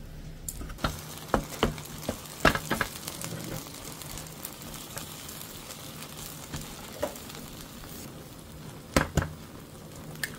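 Green onions and chopped squid sizzling in oil in a frying pan for a scallion pancake (pajeon) while being stirred. A few sharp clacks stand out, the loudest about two and a half seconds in and a pair near the end.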